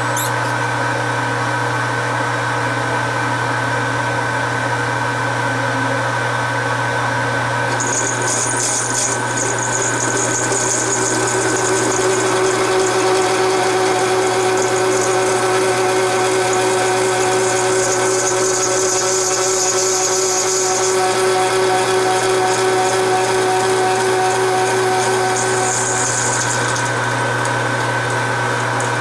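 Metal lathe running steadily while a cutting tool takes a pass on a knob from about eight seconds in until near the end, adding a high hiss and a steady tone over the motor's hum. Part of the cutting noise is the tool biting into the knurled section.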